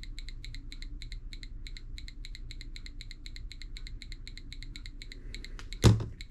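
Arduino-driven active buzzer clicking rapidly and evenly, about six clicks a second: a fast rate that means bright light on the photoresistor. A single loud knock sounds near the end.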